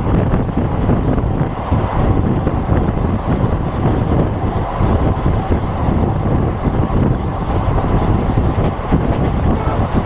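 ALCo diesel-hauled passenger train running at speed, heard from an open coach door: a steady rumble of wheels on the track with wind rushing past.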